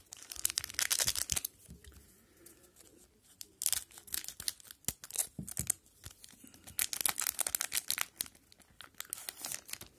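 Plastic-foil wrapper of an O-Pee-Chee hockey card pack crinkling and tearing in the hands as it is worked open and the cards are handled, in three bouts of crackling with short pauses between.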